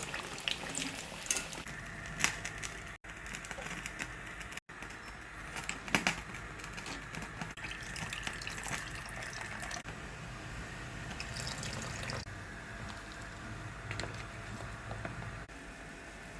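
Water running and splashing in a kitchen sink, with scattered clinks and knocks of kitchen utensils.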